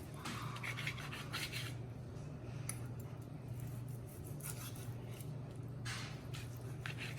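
Knife slicing through broiled corned beef on a cutting board, in several separate sawing strokes, over a steady low hum.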